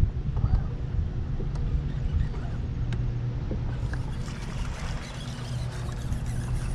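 Steady low hum of the bass boat's bow-mounted trolling motor, with wind buffeting the microphone. From about four seconds in, a hissing wash of water splashing joins it as the hooked bass is brought to the boat.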